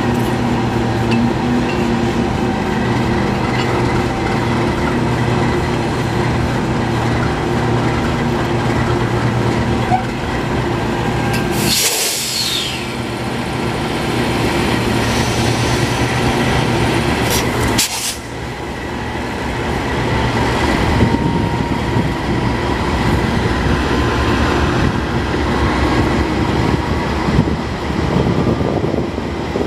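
GE C44-9W diesel locomotive with its 16-cylinder engine idling steadily, with two sharp bursts of air hissing from the brake line, about twelve seconds in and again about six seconds later. After the second burst the engine note rises slowly as the brakes are aired up.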